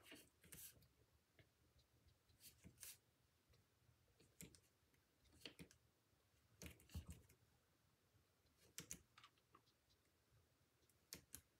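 Faint, irregular light taps and clicks of ink being dabbed onto card stock to colour leaves, with quiet room tone between them.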